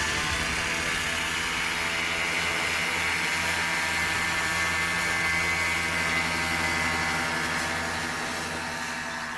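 Small engine of an ultralight trike running steadily, easing slightly quieter near the end.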